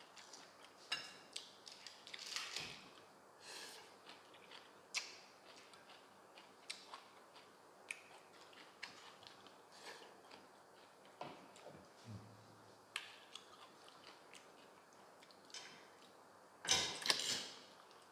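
Close-up mouth sounds of braised chicken feet being chewed and sucked off the bone: scattered wet clicks and smacks, with a longer, louder sucking burst near the end.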